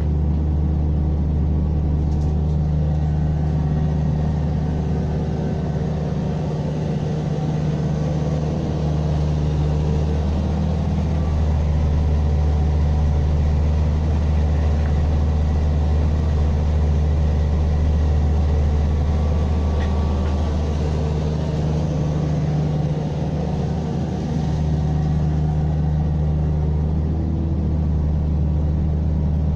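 Diesel engine of a compact earthmoving machine running steadily with a deep hum, its load rising and easing slightly.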